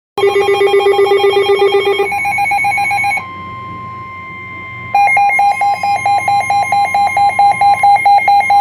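Emergency Alert System alert tones ahead of a flash flood warning. First comes a warbling electronic tone for about two seconds, then a higher tone for about a second, then a quieter steady single tone, and from about five seconds in a fast on-off beeping tone.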